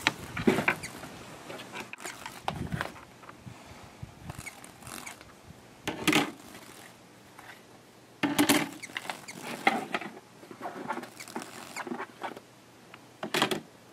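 Mesh bird-holding bag rustling and scraping in the hands in irregular short bursts, a few seconds apart, as a hummingbird is worked out of it and held.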